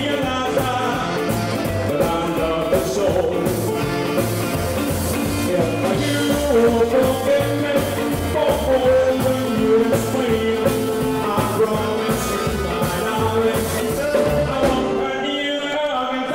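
Live band playing a 1950s-style rhythm-and-blues rock 'n' roll number on electric guitars and drums, with a steady beat. About fifteen seconds in the bass and drums stop, leaving held notes ringing.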